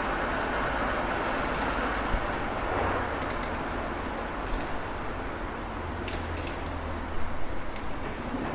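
Metal lathe running: a steady mechanical noise with a few clicks in the second half. A thin high whine stops about a second and a half in, and another, lower one starts near the end.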